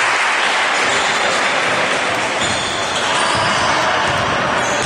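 Basketball game on an indoor court: the ball bouncing on the floor against a steady din from the hall, with a few short high-pitched squeaks after the middle.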